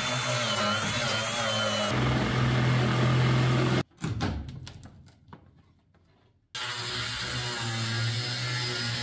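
Power tools running in short clips that cut abruptly from one to the next, with a few separate knocks in the middle, during work to remove and replace a wood stove.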